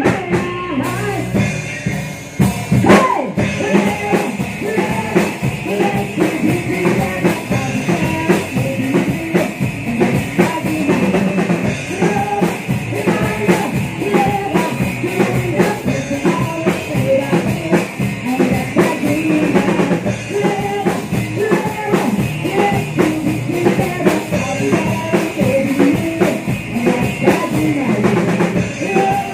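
Live rock band playing through a PA: drum kit with a steady beat, electric guitar and bass, with a woman singing into a microphone.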